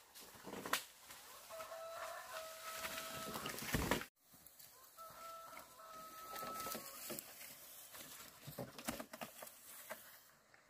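A rooster crowing twice, each a long, steady, held call. Rustling and sharp knocks from long bamboo poles being carried through brush and set down run underneath, the loudest knocks coming about a second in and just before the crows break off.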